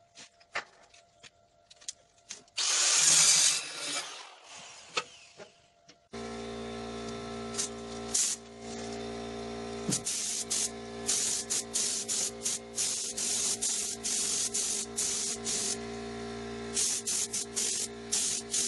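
Paint spray gun hissing in many short bursts as black paint is sprayed on, over the steady hum of an air compressor running. Before that, a few clicks and a short hissing rush about 3 seconds in.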